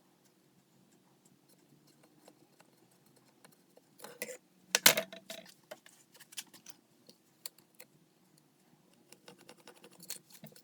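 Scattered light clicks and knocks of wood and tools being handled on a workbench, with a louder clatter of knocks about four to five seconds in.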